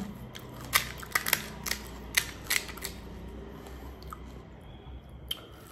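About eight sharp clicks and crackles over two seconds as a crisp, hollow panipuri shell is cracked open with the fingers and a metal spoon works at a ceramic bowl, then quiet handling.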